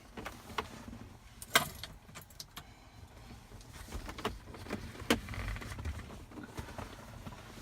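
Scattered light clicks and rattles of hands handling parts inside the car's cabin, the sharpest click about one and a half seconds in and another about five seconds in, over a faint low rumble.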